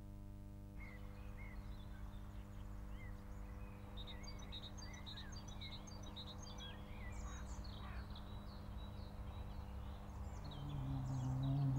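Small birds chirping and twittering in quick, scattered calls over a low steady hum. Near the end a deep ringing tone swells up and grows loud.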